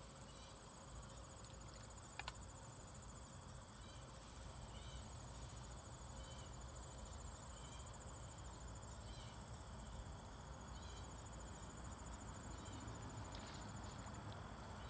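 Insects trilling steadily in a high, even buzz over a low rumble, with one brief click about two seconds in.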